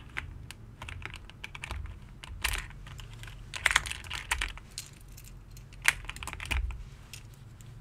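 Keys pressed irregularly on a GMK67 mechanical keyboard, sharp clacks with uneven gaps, sound-testing switches freshly lubed and fitted into the board.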